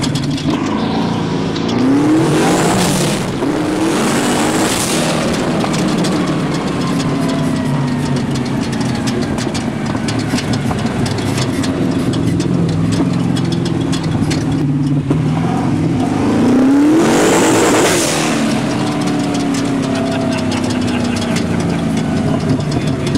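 Twin-turbo LS V8 of a sand buggy, heard from inside the cab, running hard under load. Its pitch rises as it accelerates about two seconds in and again around sixteen seconds, each time with a loud rushing burst of noise.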